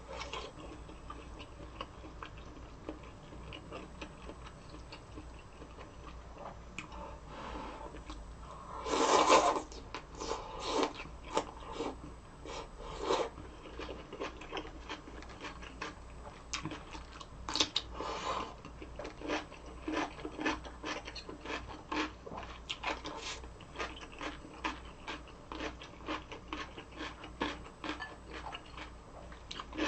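A person chewing food close to the microphone, with a steady run of crisp crunches, two to three a second. There is one louder, longer noisy sound about nine seconds in.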